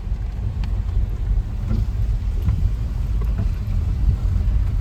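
Car driving over a rough, muddy mountain road, heard from inside the cabin: a steady low rumble of road and engine noise with a few faint knocks from the bumps.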